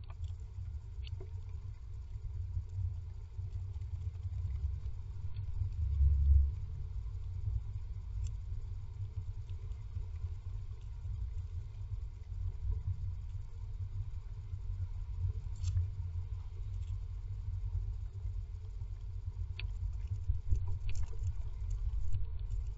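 Great tit shifting on its nest inside a wooden nest box: a continuous low rumbling with soft knocks, louder about six seconds in, and a few faint ticks.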